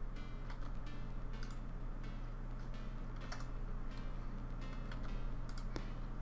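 A few scattered clicks of a computer keyboard and mouse over a steady low hum.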